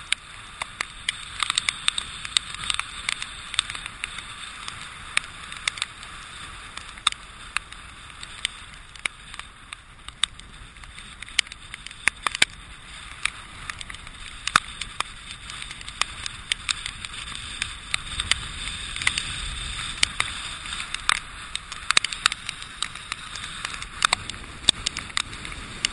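Water drops from storm rain or spray ticking irregularly against the camera, several sharp ticks a second, over a steady hiss of hurricane wind and surf. A low rumble swells briefly a little past the middle.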